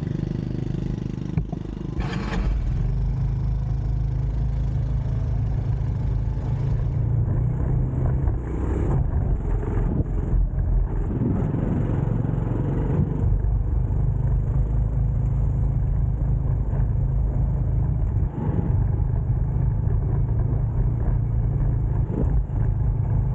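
Motorbike engine running steadily while riding, with heavy low rumble on the microphone. A brief rattle about two seconds in.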